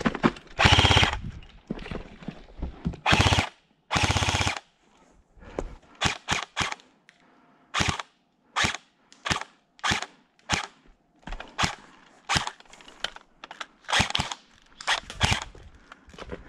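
Airsoft guns firing: three short full-auto bursts in the first few seconds, then a string of single shots, about one or two a second.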